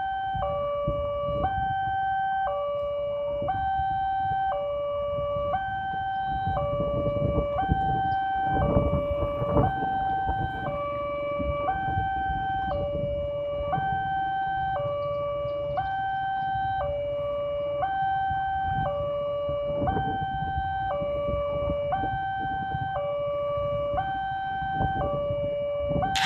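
Railway level-crossing warning alarm sounding: an electronic two-tone signal alternating steadily between a lower and a higher pitch, about one step a second.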